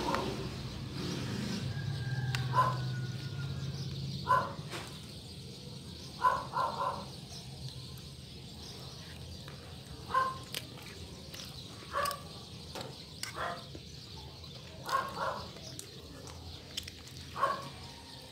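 Short animal calls repeated every second or two, some in quick pairs, over a low steady hum that fades out about four seconds in.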